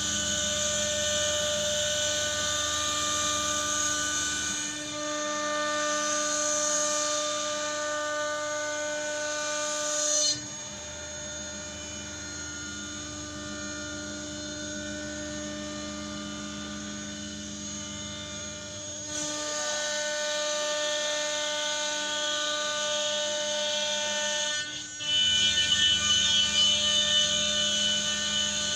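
CNC cutting machine running, a steady mechanical whine made of several fixed tones. The tones and loudness shift in stages as it works: quieter from about ten seconds in until about nineteen, and louder again near the end.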